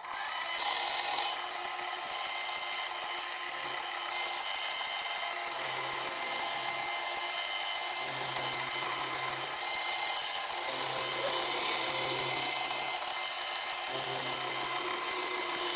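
Milling machine running steadily while its cutter takes a skim across the face of a rough cast collar. It holds a whine of steady tones throughout, and a low hum comes and goes every second or two.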